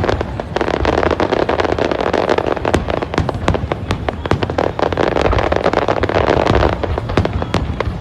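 Fireworks display: dense crackling from many small bursts going off at once, over deep booms of shells. The crackle thins out shortly before the end.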